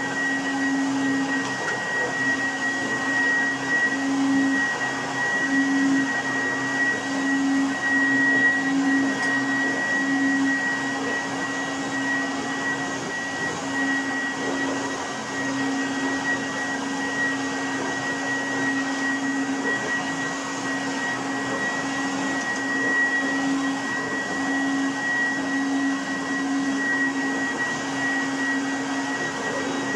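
Goblin Laser 2200X upright vacuum cleaner running steadily, its motor giving an even hum with a high whine over a continuous rush of air.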